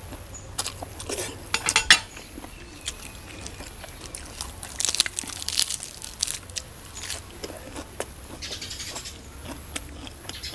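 Close-up eating sounds: a forkful of rice noodles slurped, then chewed, with sharp clicks of a fork on the plate and short wet mouth noises scattered through, the loudest clicks about two seconds in.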